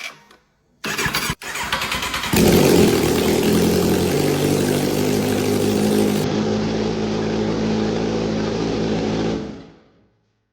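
Kawasaki Z1000 inline-four motorcycle engine being cranked on the electric starter, catching about two seconds in and then idling steadily until it fades out near the end.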